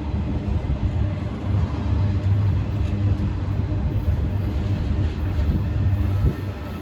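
Welded-rail freight train rolling past with a steady low rumble.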